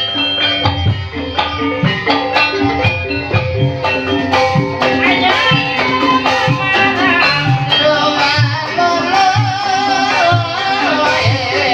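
Javanese gamelan music accompanying an ebeg horse-trance dance: struck metallophones playing a steady repeating pattern over regular drum strokes. About five seconds in, a wavering sung melody joins in.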